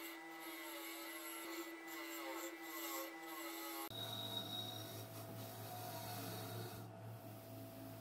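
A bench motor spinning a brass wire brush wheel, with the bristles rubbing and scraping against a ceiling fan's metal motor cover to strip rust and grime. About four seconds in the sound changes abruptly to a lower, steadier hum.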